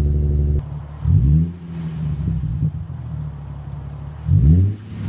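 Nissan 370Z's 3.7-litre V6 through an Injen True Dual stainless-steel catback exhaust, idling steadily and then revved twice, each blip rising quickly and falling back to idle, about a second in and again near the end.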